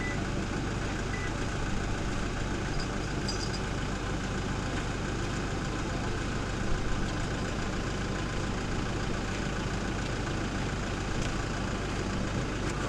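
SUV engine idling steadily, with a short rattle about seven seconds in as a wire-mesh farm gate is pulled open.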